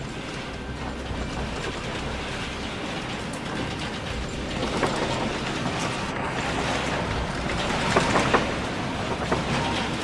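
Continuous rattling and clattering over a steady noisy rumble. It grows louder about halfway through, with a few sharper knocks near the end.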